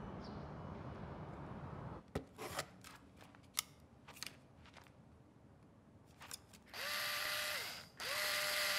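Cordless drill run twice, each time spinning up quickly, holding a steady whine for a second or so and winding down, after a few light clicks and knocks of handling. A steady low background hum fills the first two seconds.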